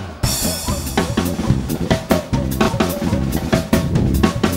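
Live band playing an upbeat instrumental passage with the drum kit up front: bass drum and snare hits on a steady beat.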